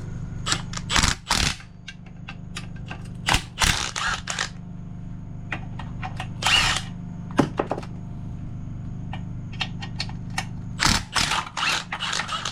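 A power tool run in several short bursts, with clicks and clanks of tools between them, as the clutch pressure plate bolts on a Honda engine are loosened.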